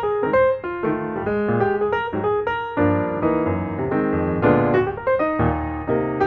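Background piano music: a steady run of notes played at a lively pace.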